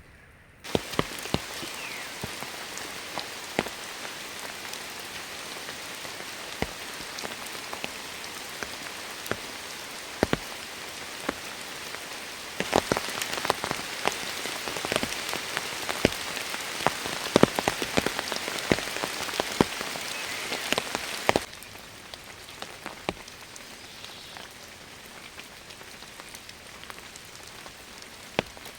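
Heavy rain falling steadily, with many sharp taps of large drops striking close by. It suddenly gets louder about twelve seconds in, then drops just as suddenly to lighter rain after about twenty-one seconds.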